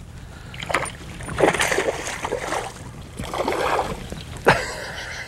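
A small hooked bass thrashing at the surface beside the boat, throwing up bursts of splashing in short bouts, with one sharp knock near the end.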